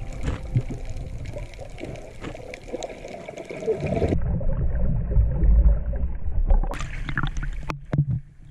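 Water and bubble noise picked up by a camera in an underwater housing: a dull, muffled rumble with bubbling as a snorkeler rises close to it. About seven seconds in, splashing and lapping waves come in as the camera breaks the surface.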